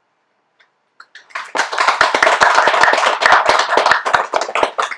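A small audience clapping after a poem reading. It starts about a second in and dies away at the end.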